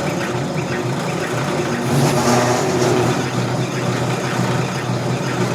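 Brake lathe running, its motor humming steadily as the cutting bit machines down a steel clutch backing plate from an automatic transmission, with a louder scraping of the cut about two seconds in.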